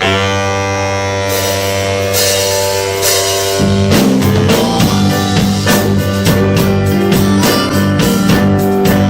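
Rock band playing: a held chord rings at first, then the full band with drums comes in about three and a half seconds in and plays on with a steady beat.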